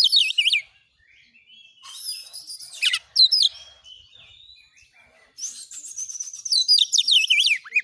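Oriental magpie-robin (kacer) singing a fast, varied song in three bursts of rapid warbles and falling whistles, with short quieter gaps between them.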